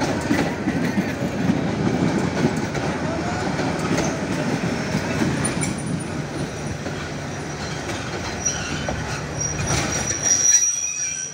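Passenger train coaches rolling past on the track, with a steady rumble and wheels clattering over the rail joints. Near the end a thin, high wheel squeal comes in and grows louder.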